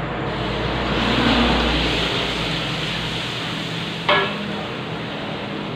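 Spice paste sizzling as it drops into hot oil in a wok, strongest in the first two seconds. A single sharp knock about four seconds in.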